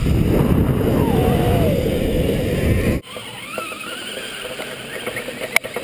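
Zipline pulley trolley running along the steel cable, with wind rushing over the camera and a whine falling in pitch. About three seconds in the loud rush cuts off abruptly, leaving a quieter hiss.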